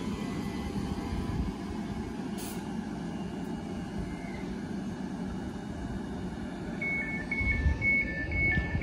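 Elizabeth line Class 345 electric train running slowly into the platform and braking to a stop, a low rumble. About seven seconds in, the train's door alert starts: a steady run of two-tone beeps as the doors are released and open.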